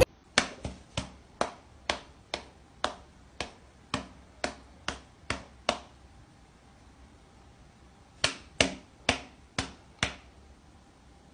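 A quick run of sharp slaps, about two or three a second, as a person's hand and a cat's paw swat at each other in play. They stop for a couple of seconds, then five more follow.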